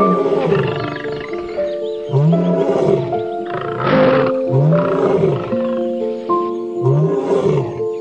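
Background music of steady held notes, over which a large animal gives short, low calls every second or two, each rising and then falling in pitch.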